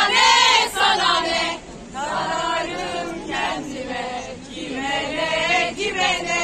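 A crowd of women protesters chanting slogans in unison, in several loud phrases of about a second each with short breaks between them.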